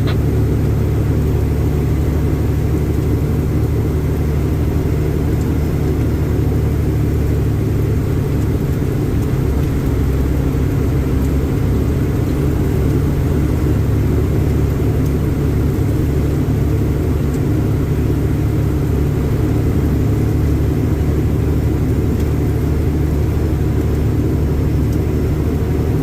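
Diesel engine of an end dump truck running steadily, a low, even hum.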